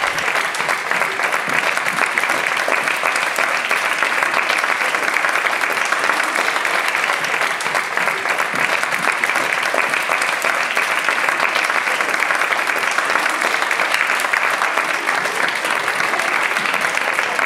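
Audience applause: many people clapping steadily without a break, fading out at the very end.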